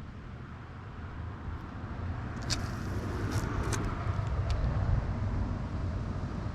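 Low, steady rumble of wind buffeting the microphone, swelling toward the middle, with four sharp clicks, fishing-reel or tackle handling, between about two and a half and four and a half seconds in.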